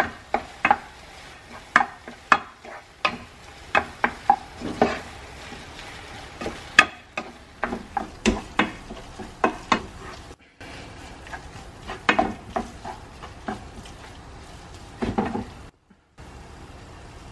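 Sliced onions sizzling in a nonstick frying pan while a wooden spatula stirs and scrapes them, with frequent sharp knocks of the spatula against the pan. The onions have been frying for about 20 minutes and are caramelizing.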